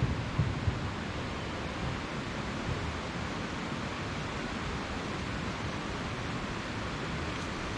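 A steady, even rushing noise, with a few soft low bumps in the first second.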